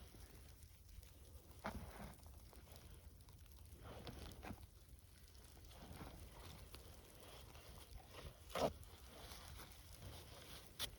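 Faint, scattered rustles and crunches of dry grass and kindling being handled while a fire is being lit, with a few louder crunches spaced a few seconds apart, over a low wind rumble on the microphone.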